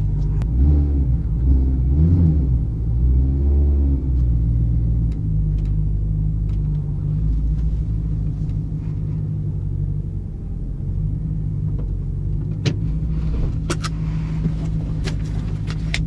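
BMW E92 M3's naturally aspirated 4.0-litre V8 heard from inside the cabin, its revs rising and falling a few times in the first four seconds, then settling to a steady low-rev run as the car creeps along. A couple of sharp clicks come near the end.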